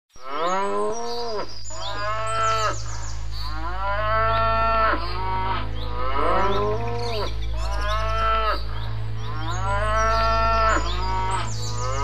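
Cows mooing: a run of about seven long moos, each rising then falling in pitch, some overlapping one another, over a steady low hum.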